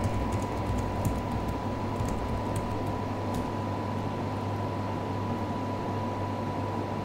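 Steady low hum and hiss with a thin, constant high tone, and a few faint short clicks in the first few seconds.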